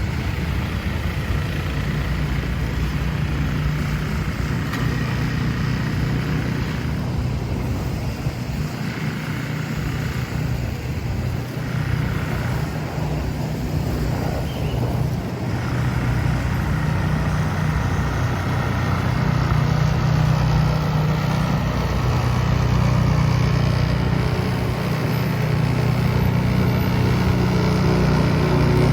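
An engine running steadily amid street noise, its low hum growing louder about two-thirds of the way through as it draws closer.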